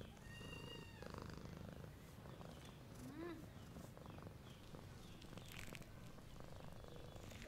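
Domestic cat purring faintly, a steady low rumble.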